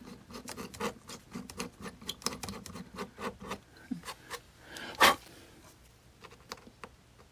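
Hand pin vise with a 1/16-inch drill bit twisted in a small hole to clear it out: a quick run of small scratchy clicks as the bit rasps, for about three and a half seconds. A single sharp click follows about five seconds in.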